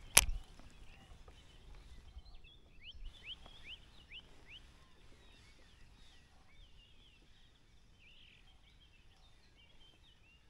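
A single sharp click at the very start, then small birds singing and calling: four quick rising chirps a few seconds in, followed by scattered chirps and twitters.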